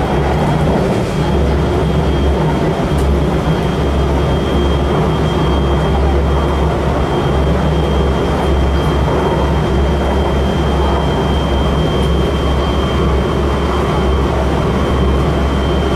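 Kintetsu express train running at speed, heard from inside the carriage: a steady low rumble of wheels on the rails under an even running noise, with a faint high steady tone held throughout.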